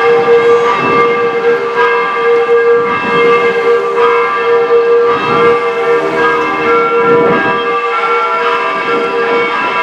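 Bell-tower bells ringing, several bells struck one after another so their tones overlap into continuous ringing, with one lower bell humming steadily underneath.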